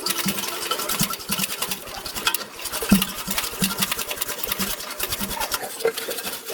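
Rapid, irregular clicking and tapping, several a second, with a sharper knock about three seconds in.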